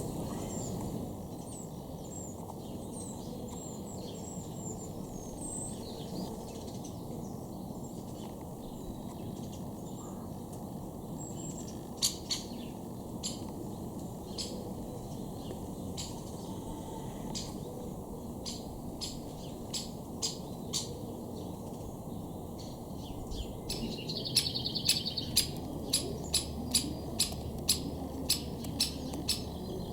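Outdoor ambience with small birds calling: faint high chirps at first, then sharp, clipped calls that settle about halfway into a steady series of roughly two a second.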